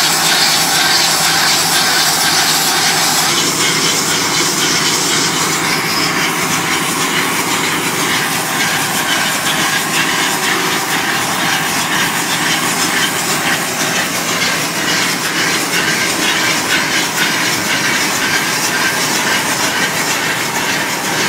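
Mobile brick-making machine running as it moulds and lays fresh clay bricks: a loud, steady, noisy mechanical clatter with a hiss.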